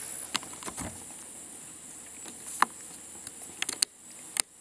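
Metal clicks and snaps from a UTG clamp-on rifle bipod as a leg is worked through its release button and spring-loaded pivot, a scattered string of sharp clicks with the loudest about halfway through and a quick cluster near the end.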